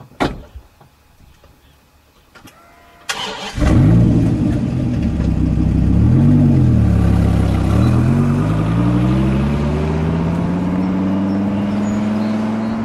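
A sharp knock, then about three seconds in a Dodge Viper's V10 engine cranks and catches. It revs up and back down, then pulls away with the engine note climbing steadily as the car accelerates.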